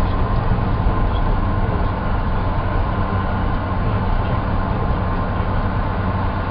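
Steady engine and road drone of a VW bus driving at speed, heard from inside the cab.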